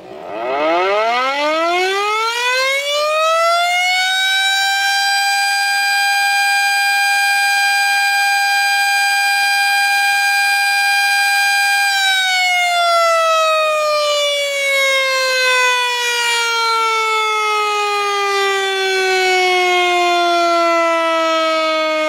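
Civil defence warning siren winding up from a low pitch to a high steady wail over about four seconds, holding that pitch, then gliding slowly down from about halfway through.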